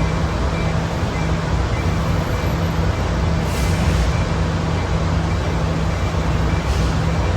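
Idling train at a station platform: a steady low rumble with a constant hum and no change in pitch.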